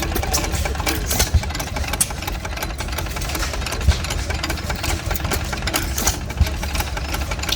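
Antique hit-and-miss stationary engines running, a steady rapid clatter with a heavier thump about every two and a half seconds.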